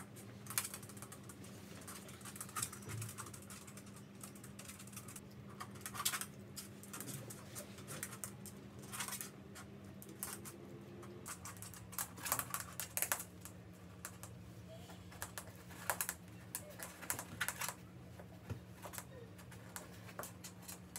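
Scattered light taps and clicks from a small pet moving about on a wooden floor, with rustling of a padded quilt, over a steady low hum.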